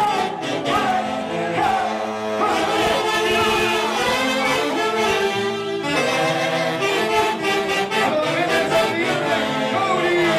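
Live band music led by saxophones, with a singer's voice over it and cymbal strikes.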